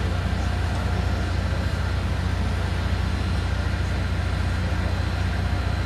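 Steady jet noise from the Antonov An-178's twin turbofans as it flies its display, with no rise or fall in level.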